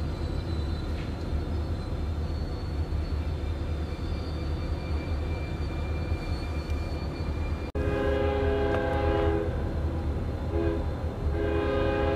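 Diesel freight locomotives running with a low, steady rumble. About eight seconds in, a locomotive's multi-chime air horn sounds: a long blast, a short one, then another long blast.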